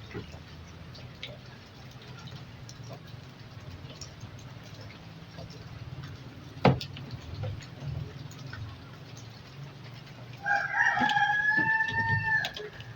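A rooster crowing once near the end, a single call of about two seconds that drops off at its close. Before it, light clicks of handling, with one sharp click a little past halfway.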